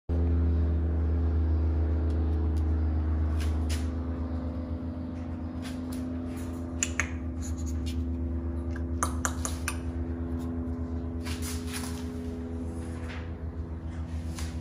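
A steady low mechanical hum, with several faint tones above it, runs under scattered light clicks and taps from about three seconds in: a Miniature Schnauzer puppy's claws on a hard countertop as it moves about.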